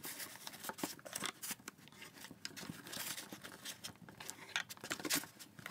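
Hands lifting a USB microphone and its tripod stand out of foam packaging: quiet rustling and scraping with many small clicks.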